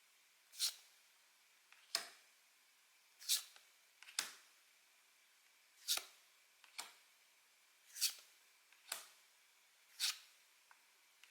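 Pokémon trading cards being flipped through one at a time, a short crisp card snap about every second, nine in all.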